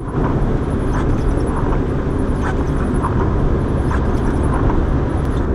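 Steady road noise inside a moving car: a constant low rumble of engine and tyres on a wet road.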